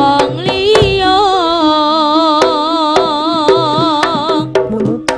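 A female singer holds one long note with a wide vibrato, backed by a Javanese jaranan gamelan ensemble with sharp, regular kendang drum strokes. The held note ends near the end, and shorter sung phrases and drumming carry on.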